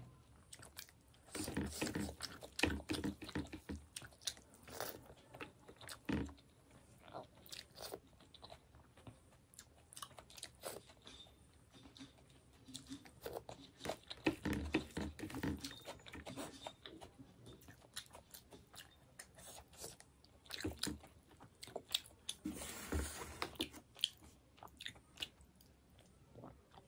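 A person eating fish curry close to the microphone: wet chewing and biting with crunches, coming in bursts of a few seconds with quieter chewing between.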